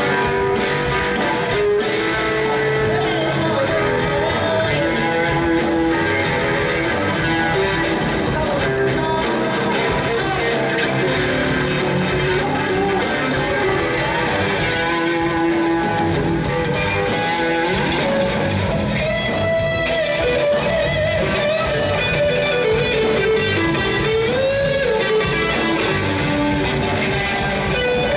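Guitar-led background music, steady and continuous.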